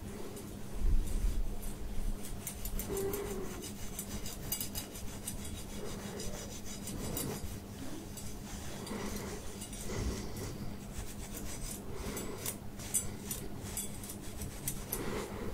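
Wire head-scratcher scalp massager, its thin metal tines rubbing and scratching over close-cropped buzz-cut hair: a continuous dry rasping made of many fine scratches. There is a low bump about a second in.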